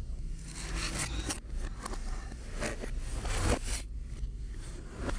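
Construction-paper puppets rustling and scraping as they are handled and slipped onto the hands, in an irregular string of short, dry rustles.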